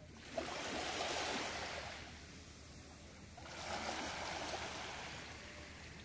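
Small sea waves washing in over a pebbly shore, swelling twice about three seconds apart.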